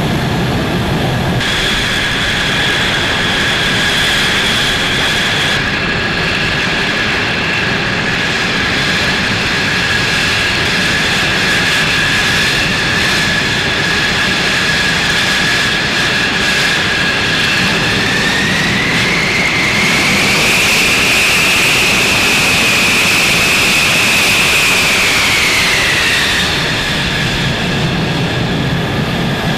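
F-15E Strike Eagle's twin jet engines whining steadily while it taxis. About two-thirds through, the whine rises in pitch and gets a little louder, holds for several seconds as the engines spool up, then falls back to the lower pitch.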